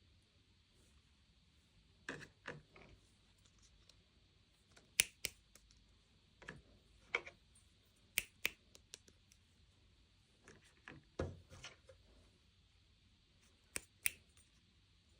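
Scattered sharp clicks and light taps, irregular and spaced out, from small plastic miniature toys and their packaging being handled.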